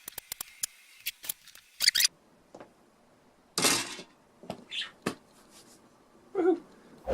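A quick run of small sharp clicks and taps, then a few scattered short scrapes and rustles: small tools and plastic keyboard parts being handled during reassembly.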